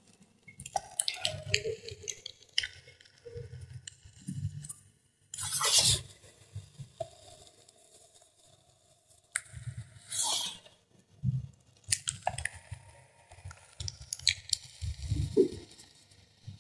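A finger crushing thin pieces of gym chalk into powder. Crisp crackles and crunches come in several bouts, mixed with soft powdery squishes, with a short pause near the middle.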